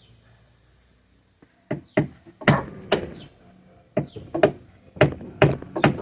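Sledgehammer striking a flat-head screwdriver used as a drift, knocking an old door hinge bushing out of a Jeep Wrangler TJ hinge: a series of about ten sharp knocks, roughly two a second, starting after a quiet first second and a half.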